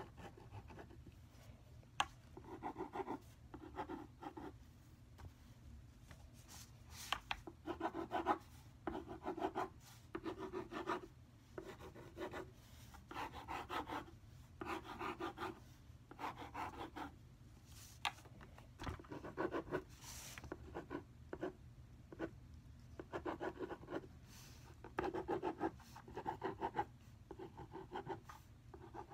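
A hand-held drawing pen scribbling back and forth on paper while colouring in, in short bursts of quick scratchy strokes with brief pauses between.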